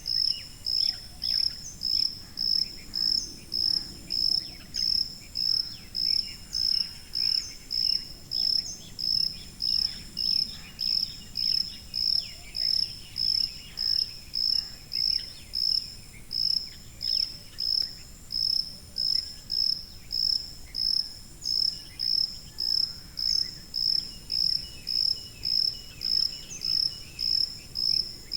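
A cricket chirping steadily: short, high-pitched chirps evenly spaced, about three every two seconds, with faint other insect or night sounds beneath.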